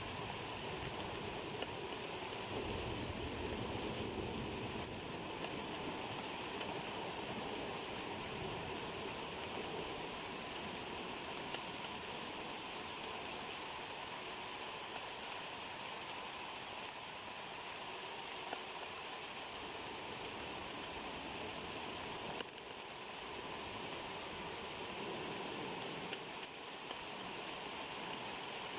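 Steady heavy rain pattering on the eagle nest and the nest camera during a thunderstorm, with a low rumble in the first few seconds.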